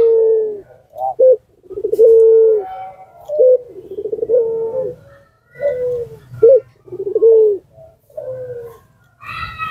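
Puter pelung (Barbary dove) cooing: a run of low coos, long drawn notes alternating with short ones, repeating with brief pauses.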